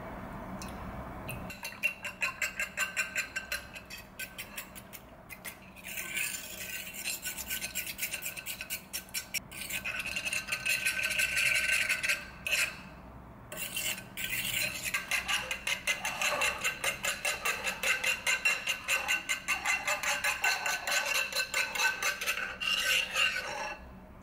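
Metal fork whisking eggs and milk on a ceramic plate: fast, steady clicking and scraping of the tines against the plate, starting about a second and a half in and pausing briefly a few times.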